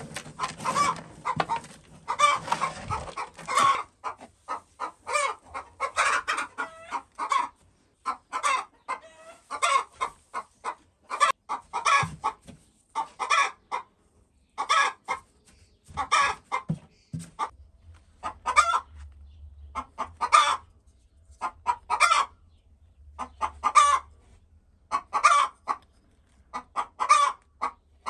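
A hen clucking over and over in short calls, bunched in little runs that come back every second or two.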